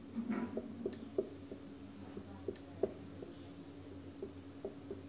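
Marker pen writing on a whiteboard: a string of short, irregular taps and scratches as bond lines and symbols are drawn, over a faint steady hum.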